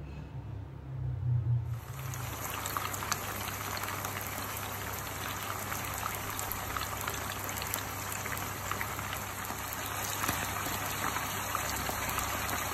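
Chicken pieces frying in hot oil in a pan: a steady sizzle full of small crackles that starts suddenly about two seconds in.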